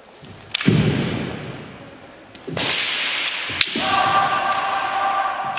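Kendo sparring: bamboo shinai clacking sharply against each other and the armour several times, mixed with the fencers' kiai shouts, one of them held as a long steady yell through the second half.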